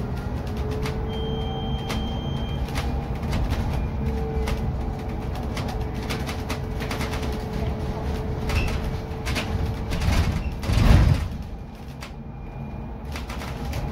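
Cabin noise of a BYD K9U electric city bus under way: low road rumble, a steady electric drive whine and frequent rattles and clicks from the interior fittings. A brief high beep sounds about a second in, and a loud short burst of noise comes near the end, after which the cabin goes quieter.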